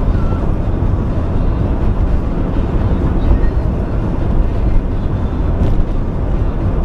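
Steady road and engine noise of a moving vehicle, heaviest in the low end, with no let-up or change in pace.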